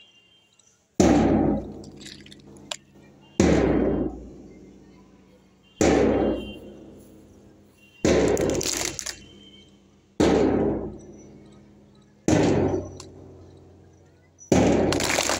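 A loud thump repeated six times at an even pace, about every two seconds, each sharp at the start and dying away over about a second. Near the end a longer, rougher noise begins and keeps going.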